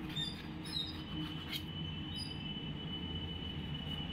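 Knife cutting through a soft steamed cake on a stainless steel plate, with a few short high squeaks near the start and a thin, steady high squeal as the blade scrapes the steel, over a low steady hum.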